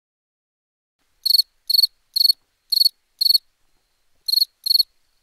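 Cricket chirping: seven short, high chirps about two a second, starting out of dead silence about a second in, with a pause of about a second partway through.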